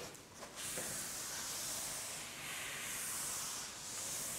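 Several long hissing strokes across a lecture board, each lasting roughly a second or more, as the board is written on or wiped between equations.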